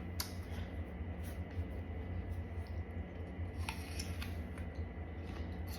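A person chewing a crisp apple: a few faint crunches over a steady low hum.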